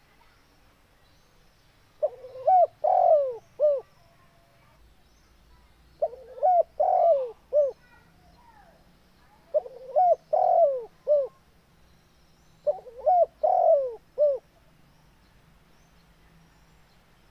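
Spotted dove cooing: four call phrases about three and a half seconds apart, each a short coo or two, a longer louder coo, then a short final coo.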